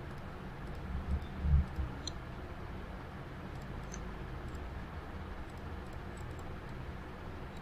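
Faint computer mouse clicks over a steady low background hum, with a few low thumps about a second and a half in.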